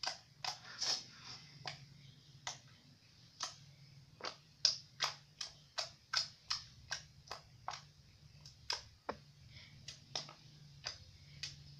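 Jelly slime being squeezed and played with by hand, giving a run of short, sharp clicks and pops at an uneven pace, roughly two a second.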